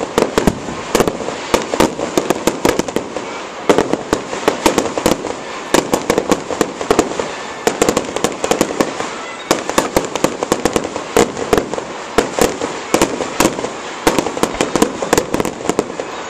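Aerial fireworks going off in a rapid, unbroken barrage of sharp bangs and crackles, several reports a second.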